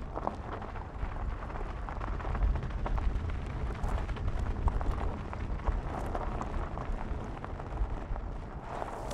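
A Mercedes GLE SUV crawling slowly over a rocky dirt track: a steady low rumble with scattered crunches and clicks from the tyres rolling over stones and grit.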